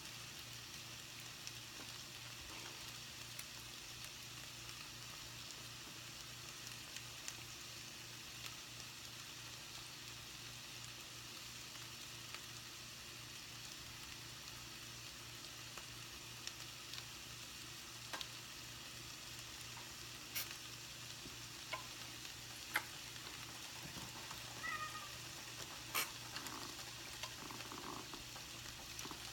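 Mango frying in a pan: a steady sizzling hiss with scattered sharp pops and clicks.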